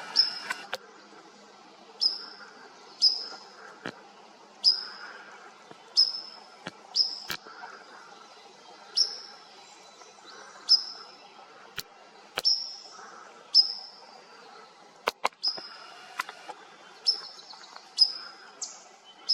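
A small bird repeating a short, sharp, high call that drops in pitch, about once every second or so, with a few sharp clicks in between.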